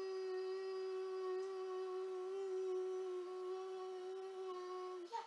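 A boy humming one long note at a steady pitch, which stops about five seconds in.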